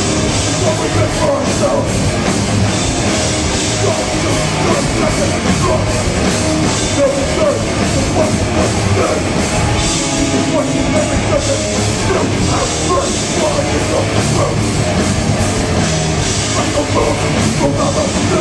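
Hardcore band playing live: guitars, bass and drums with cymbal hits, and a vocalist shouting into the microphone, all loud and dense as heard from the crowd.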